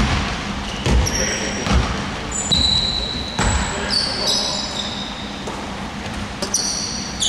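A basketball bouncing on a hardwood gym floor, several dull thuds with echo in the hall, along with short high squeaks of sneakers on the wooden court, most of them in the second half.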